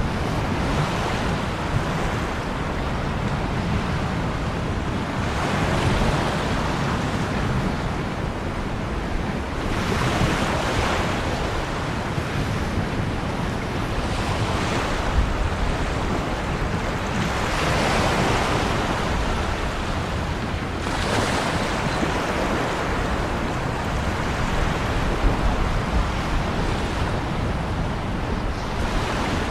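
Ocean waves breaking and washing on a shore, a steady surf rush that swells every four seconds or so as each wave comes in. A low rumble of wind on the microphone runs beneath.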